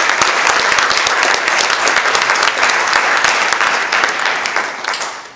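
Audience applauding, a dense clapping that holds steady and then dies away near the end.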